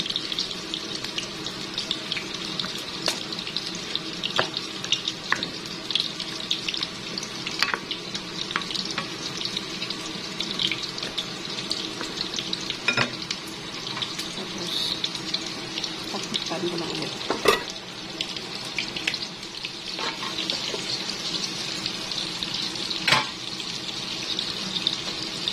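Chicken and chorizo bilbao boiling in broth in a pan, the liquid bubbling with a steady hiss and scattered sharp pops.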